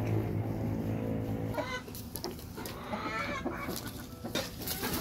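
Chickens clucking in short, repeated calls from about one and a half seconds in, after a steady low hum that stops there.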